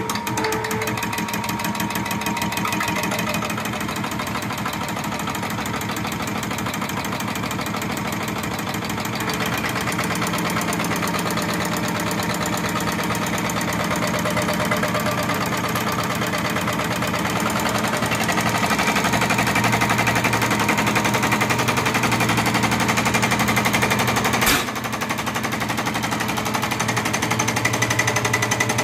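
Diesel fuel-injection pump test bench running a single-cylinder PF-type injection pump, with a fast, even rattle of the pump injecting through the bench's test nozzle during a delivery test. It grows louder about two-thirds of the way in, and there is one sharp click near the end, after which the level dips briefly.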